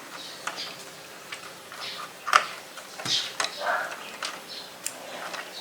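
Scattered light clicks and taps of plastic and metal as a SATA data cable is worked toward its port inside a PC case, with one sharper click about two and a half seconds in.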